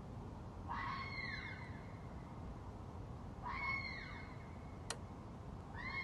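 Red fox screaming: two long, hoarse screams about three seconds apart, each rising and then falling in pitch, with a third beginning at the end. A single sharp click comes about five seconds in.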